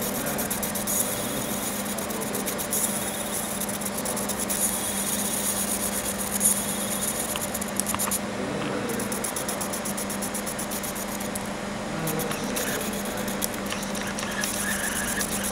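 Laser cutting a thin metal strip: a rapid, high-pitched crackle from the laser pulses striking the metal, over a steady low machine hum. The crackle stops briefly about eight seconds in and again around twelve seconds.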